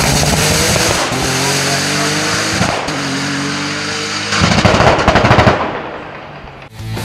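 Hillclimb race car accelerating hard away, its engine pitch rising through one gear, a short break at the upshift about a third of the way in, then rising again through the next. About two-thirds in comes a loud crackling, banging stretch lasting about a second, then the sound fades and cuts off suddenly near the end.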